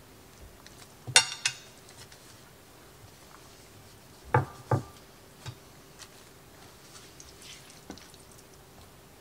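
Kitchen clatter while burritos are laid in a glass casserole dish: a sharp ringing clink about a second in, followed quickly by a second, then two knocks in quick succession near the middle and a few lighter taps.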